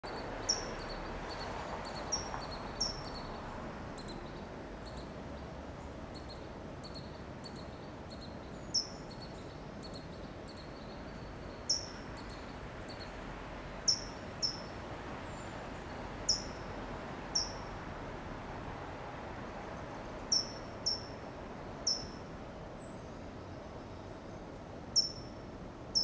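California towhee giving sharp, high "tsip" chip calls, one at a time every second or few, each short and falling in pitch, about a dozen in all.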